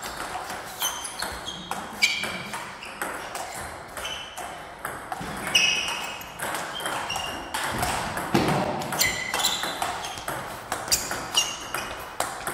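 Table tennis rally: the plastic ball clicking off rubber paddles and the table, hits coming roughly every half second, many with a short high ping.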